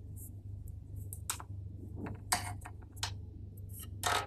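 Light clicks and taps of a hand-held samosa mould being folded shut over filled dough and pressed, with a louder scraping rustle near the end; a steady low hum runs underneath.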